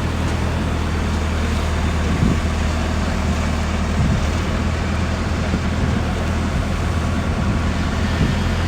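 Diesel engine of heavy drilling or piling machinery running steadily with a deep hum, with a few brief knocks.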